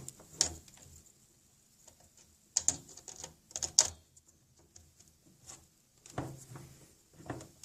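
A few scattered sharp clicks and light knocks of hands handling a small desktop computer and its cables, clustered a few seconds in.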